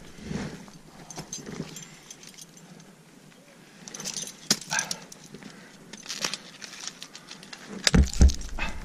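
Metal climbing gear clinking and scraping: ice axe and crampons knocking and scraping on frozen, rime-covered rock, with the axe leash's carabiner jangling. Quiet at first, then a run of sharp clicks and scrapes from about four seconds in, and a low rumble on the microphone near the end.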